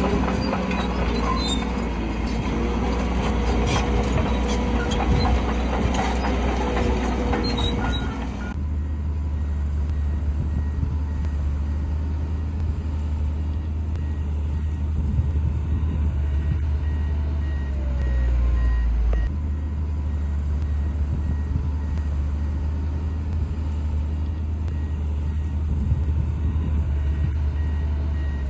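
Heavy diesel earthmoving machinery running. At first a busy, noisy mix with some squealing tones; then, after an abrupt change, a deep steady engine rumble with a backup alarm beeping at a steady, even rate.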